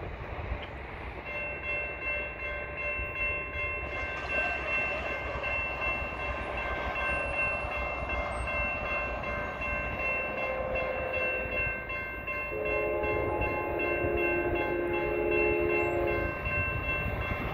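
Railroad grade-crossing bell ringing steadily, starting about a second in, while the crossing gates lower. About twelve seconds in, the horn of an approaching Union Pacific freight locomotive sounds one long blast of nearly four seconds.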